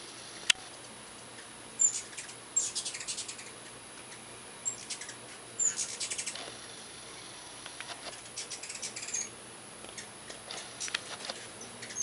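Hummingbirds giving rapid chittering calls: quick series of high clicks and brief squeaks in repeated short bursts, some of them sharp and loud.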